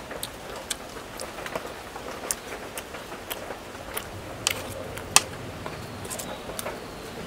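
Eating at a shared meal: a scatter of irregular crisp clicks and crunches from chewing and handling food, with one sharper snap about five seconds in.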